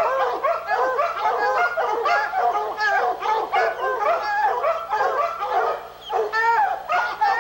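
Several bear-hunting hounds barking, yipping and whining together in a continuous, overlapping chorus of high calls.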